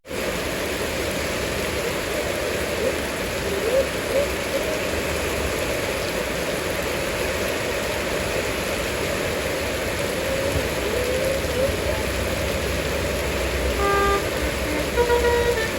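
Steady road and traffic noise, then about fourteen seconds in a bus's Basuri multi-tone 'telolet' horn starts playing a tune of quick stepped notes.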